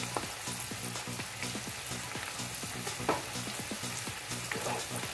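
Garlic butter cream sauce simmering hard in a frying pan: steady sizzling and bubbling with many small irregular pops, one a little louder about three seconds in.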